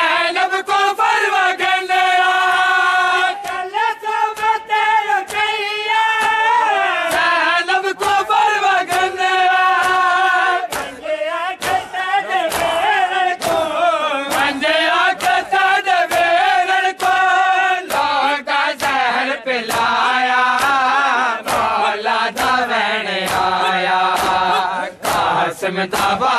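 Men's voices chanting a Punjabi noha in unison, kept in time by a steady beat of sharp slaps from chest-beating (matam), roughly three every two seconds.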